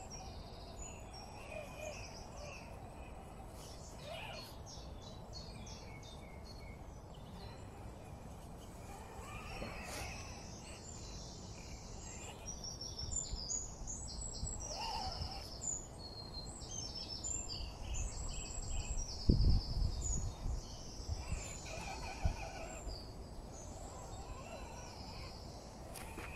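Wild birds singing, many short chirps and trills, over a steady low rumble, with a sudden thump about two-thirds of the way through and a smaller one soon after.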